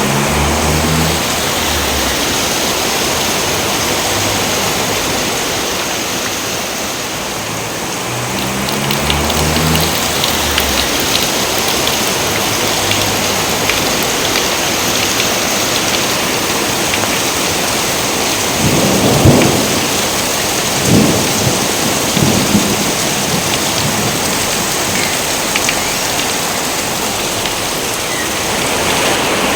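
Steady heavy rain with thunder. A few loud thunder cracks and rumbles come about two-thirds of the way through, the loudest about nineteen seconds in.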